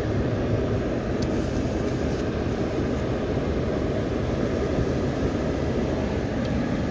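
Automatic car wash water jets spraying against a car's windshield and body, heard from inside the car as a steady, muffled rushing noise.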